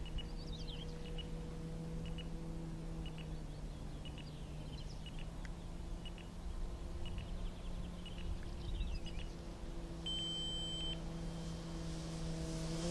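Distant RC Cessna 182 Skylane model's brushless electric motor and propeller, a steady hum, with small birds chirping. A steady high electronic beep sounds for about a second near the end.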